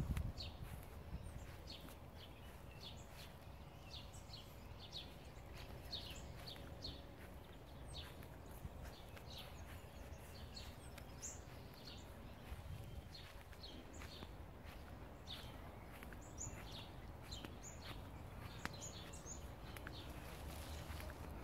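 Small birds chirping outdoors: many short, high chirps scattered throughout, over a faint low rumble.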